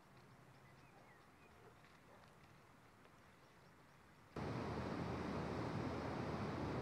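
Quiet outdoor ambience with a few faint high chirps. About four seconds in, a loud steady rushing noise starts abruptly and holds.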